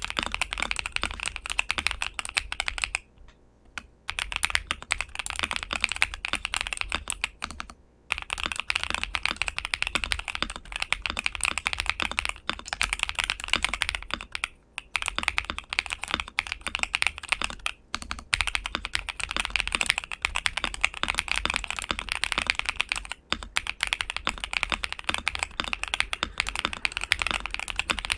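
Steady fast typing on a modded ASUS Azoth mechanical keyboard with LEOBOG Graywood v4 linear switches on a polycarbonate plate, dampened with foam and PET film layers: a dense run of key clacks broken by a few brief pauses.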